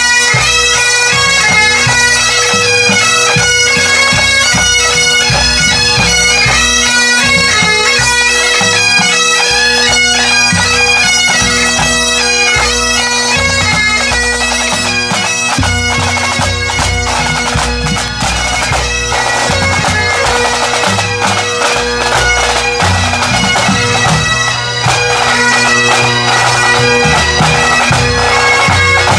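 Pipe band playing on the march: Great Highland bagpipes sound a tune over their steady drones, with snare and bass drums beating time, the drumming busier in the second half.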